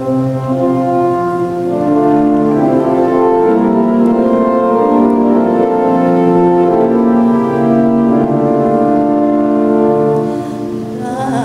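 Church organ playing the introduction to a hymn, in slow held chords that change step by step; it comes in suddenly and stays loud throughout.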